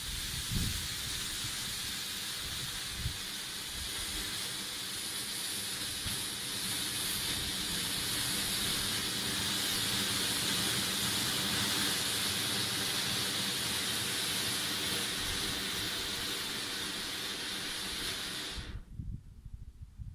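Homemade charcoal spark gerb (fountain firework) burning with a steady, loud hiss as it sprays sparks, stopping abruptly near the end as it burns out.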